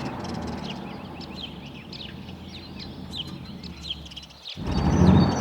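Cartoon farmyard ambience of birds chirping and hens clucking over a low steady hum, broken off about four and a half seconds in by a short swell of noise.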